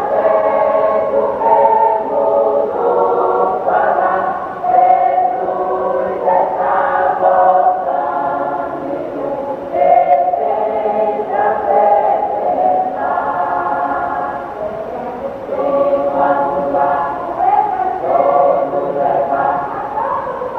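Church choir rehearsing a hymn, singing phrase after phrase with notes held for a second or two.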